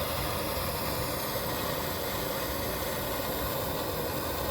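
Gas torch flame burning with a steady hiss while it heats a rusted bolt.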